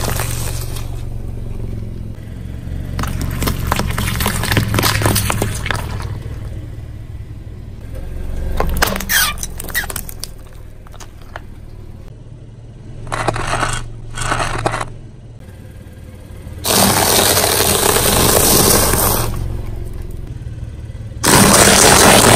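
A car engine running slowly under load while its tyre rolls over and crushes a series of objects, among them plastic tubs of jelly. Bursts of crackling and cracking come several seconds apart, with two longer, louder stretches of crushing noise near the end.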